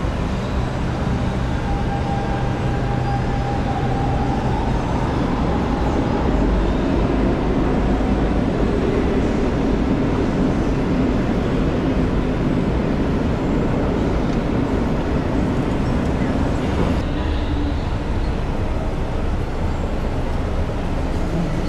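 Steady rumble and hiss of a busy metro station concourse, with a faint whine in the first few seconds.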